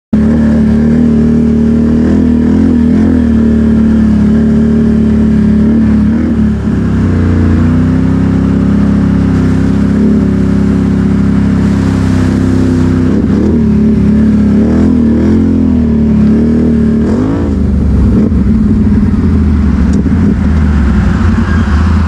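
ATV engine running under way, its pitch dipping and climbing several times as the throttle is eased and opened again.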